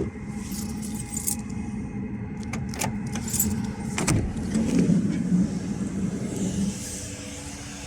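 Keys jangling with scattered clicks and rattles over a steady low vehicle hum.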